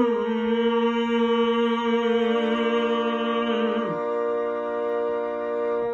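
Harmonium playing sustained chords as the introduction to a song, with a new lower note entering about two seconds in.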